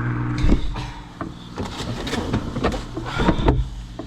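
A steady engine drone cuts off about half a second in, followed by a series of irregular clicks and knocks.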